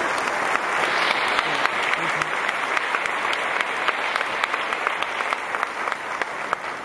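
Audience applause: dense, steady clapping from many hands, with a few sharper claps standing out close by.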